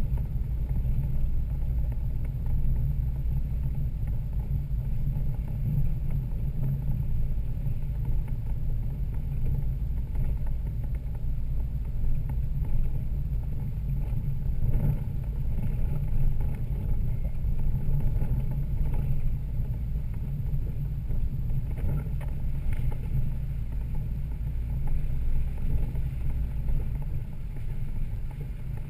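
Toyota Land Cruiser 80 Series straight-six engine and drivetrain running as the truck drives the trail, a steady low rumble with a few faint knocks in the middle.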